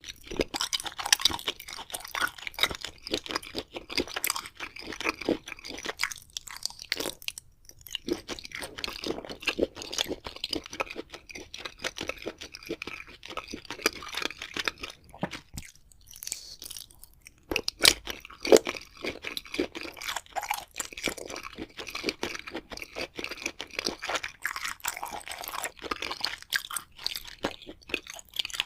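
Eating sounds: crunchy bites and wet chewing of luncheon meat, a dense run of irregular crackles with two short pauses, the longer one a little past halfway.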